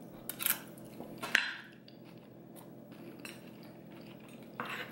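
A metal spoon clinking and tapping a few times while taco filling is spooned onto a lettuce leaf, the sharpest clink about a second and a half in.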